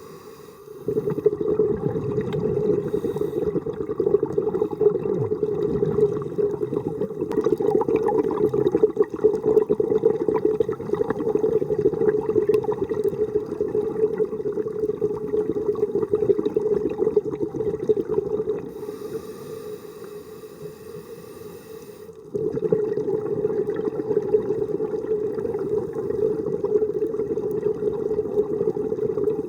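Scuba diver's exhaled bubbles from the regulator, heard underwater as a steady gurgling rush; it eases off for a few seconds near the two-thirds mark, then starts again.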